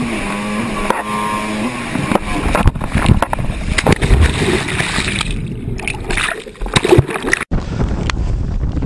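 Small inflatable boat's outboard motor running steadily, then about two seconds in a crash into the sea with splashing and muffled, churning water sounds as the microphone goes under. Near the end the sound cuts abruptly to a steady rushing noise.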